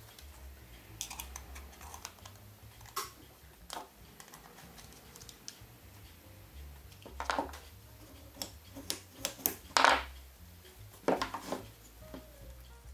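Irregular small metallic clicks and taps from a worm-drive hose clamp and brass tube being handled, the clamp being tightened with a nut driver, with a few louder clacks in the second half.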